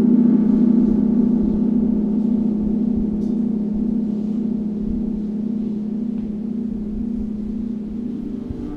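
Large gong sounding a sustained low humming tone with many overtones, swelling at the start and then slowly dying away.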